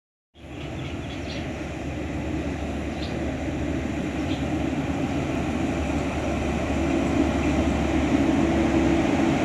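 State Railway of Thailand Sprinter diesel multiple unit approaching along the platform track, a steady low rumble growing gradually louder as it nears.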